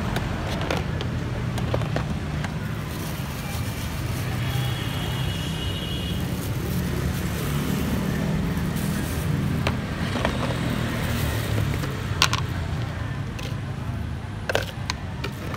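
Steady low rumble of road traffic and vehicle engines, with a few light clicks of serving utensils against plastic containers and a ceramic bowl.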